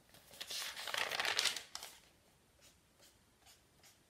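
Paper crinkling and crackling as a page is folded and creased, lasting about a second and a half, followed by a few faint paper rustles.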